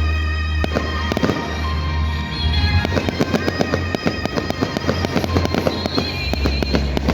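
Fireworks display: many rapid, irregular bangs and crackles of bursting shells, over loud music with a heavy bass.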